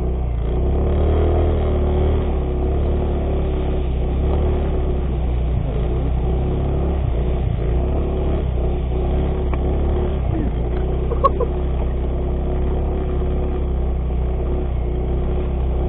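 Yamaha X-Ride 125 scooter's single-cylinder four-stroke engine running steadily at low speed while the bike crawls through tall grass offroad. A brief higher-pitched sound cuts in about eleven seconds in.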